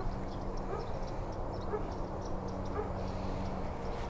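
A dog giving a few faint short whines or yips over steady low background noise.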